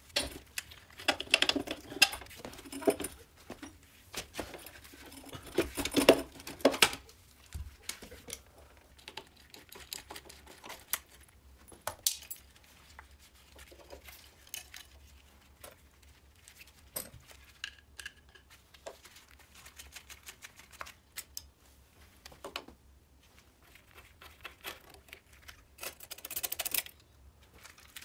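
Metal moped parts being handled and fitted by hand during reassembly: scattered clicks, clinks and light rattles, busiest in the first seven seconds and sparser later. A brief rustling noise comes near the end.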